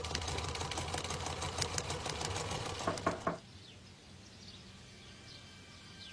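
Sewing machine stitching fabric: a fast, even run of needle clicks that ends with a few louder clicks about three and a half seconds in.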